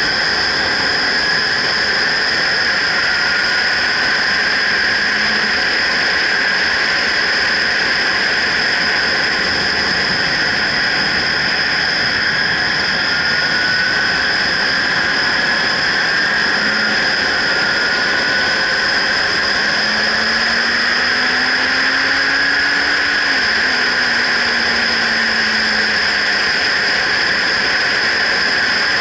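Motorcycle ride heard from a helmet-mounted camera: steady wind noise rushing over the microphone, with the bike's engine underneath. A faint engine note climbs in pitch and then drops suddenly about three-quarters of the way through.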